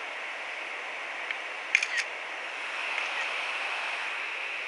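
A camera shutter clicking twice in quick succession, about two seconds in, over a steady hiss.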